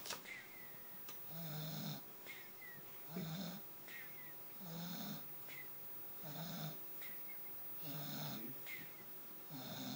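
A sleeping young man snoring steadily, about one snore every one and a half seconds. Each snore is a low rumble with a wheezy hiss on top.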